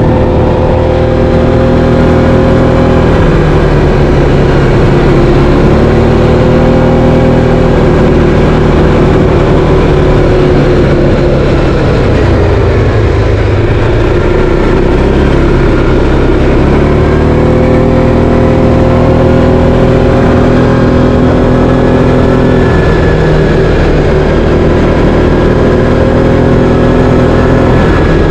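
Linhai 500 ATV's single-cylinder four-stroke engine running under way, its pitch rising and falling with the throttle. It drops lowest about halfway through, then climbs again.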